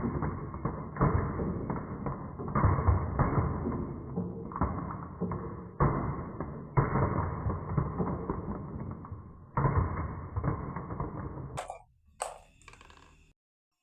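Marbles rolling and clattering down a wooden marble run: a continuous rumble with frequent knocks, then two sharp clicks near the end before the sound cuts off.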